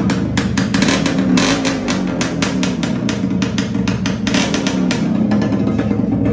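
Yamaha RX100 two-stroke single-cylinder engine running and being revved through a long steel pipe pushed into its stock silencer, a homemade modification meant to make the exhaust note sharper and louder. The exhaust runs on steadily with a rapid crackle on top.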